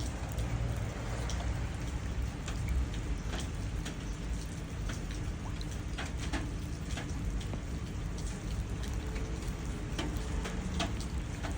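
Rain falling steadily, with individual drops striking puddles as scattered sharp ticks over an even hiss, and a low rumble underneath.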